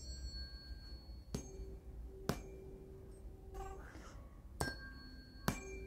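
Tuning forks struck four times. Each strike is a sharp tap followed by a steady, pure ringing tone that fades slowly, and the forks ring at different pitches.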